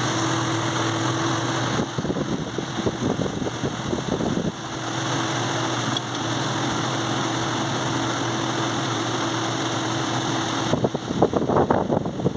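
Steady mechanical hum, like a motor or ventilation fan running, with a faint steady tone that drops out for a couple of seconds early on and returns; no gunshots. A voice begins near the end.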